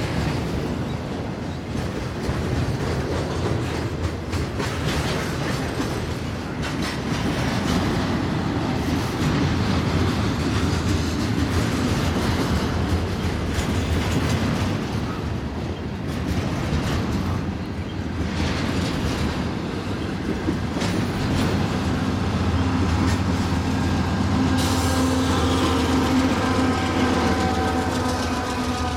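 Canadian Pacific double-stack intermodal container cars rolling past with a steady rumble and clattering wheels. In the last several seconds a diesel-electric locomotive's engine drone rises over the rail noise as the locomotive goes by.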